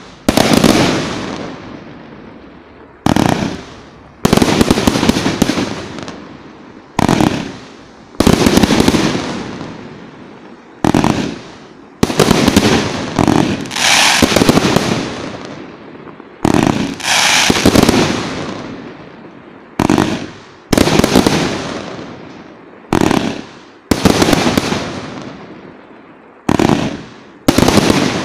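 A 99-shot, 1.2-inch-bore firework cake (YT 4105, 1.3G) firing: loud volleys of shots and bursts come every second or two, each trailing off in a fading hiss before the next.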